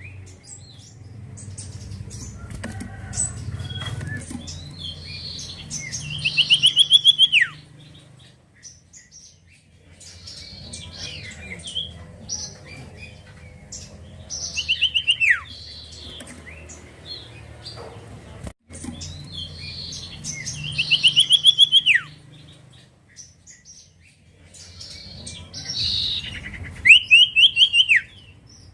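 Common iora (cipoh) singing: a fast trill of about a dozen repeated notes that ends in a falling slur, heard four times about every seven seconds, with softer chirps between the trills.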